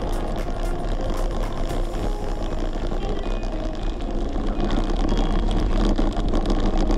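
Wind rumbling on a camera microphone with no wind suppression as a bicycle rides over rough ground, with short clicks and rattles, denser in the first couple of seconds.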